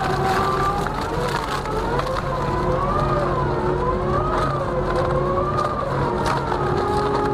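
Twin-shaft wood shredder running under load, its drive whining in a pitch that wavers up and down about once a second as the toothed rotors chew through tree stumps and wood. Scattered cracks and snaps of splitting wood ride over a steady low hum.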